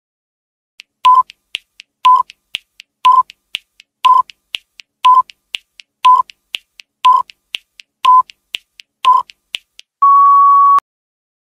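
Quiz countdown timer sound effect: fast ticking about four times a second, with a louder short beep on each second as the count runs down. A longer steady beep sounds when the timer reaches zero, about ten seconds in.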